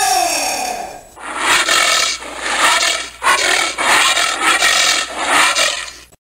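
Giant anteater calls: one pitched cry that falls in pitch, then a run of about five harsh, breathy bursts that stops abruptly.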